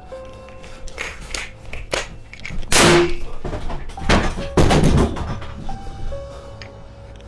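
Sparse background music with long held notes, broken by several sharp knocks and then two loud thudding bangs, about three seconds in and again from about four to five seconds.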